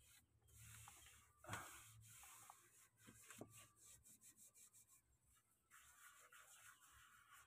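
Faint rubbing of a cloth-gloved hand wiping foam cleaner off a plastic engine cover, with one brief louder scrape about a second and a half in.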